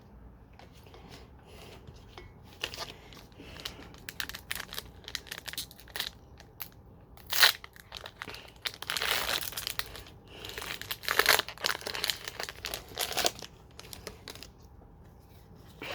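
Foil wrapper of a Pokémon TCG booster pack crinkling and tearing as it is opened by hand, in irregular crackly bursts that are loudest in the middle stretch.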